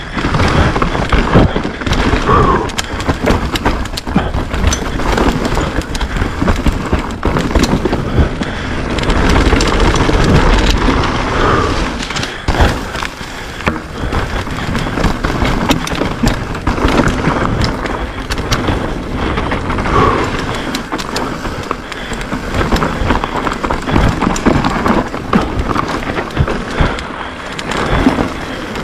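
Downhill mountain bike ridden fast down a rough dirt track: a continuous rushing noise with a heavy low rumble, broken by frequent sharp knocks and rattles as the bike hits rocks and roots.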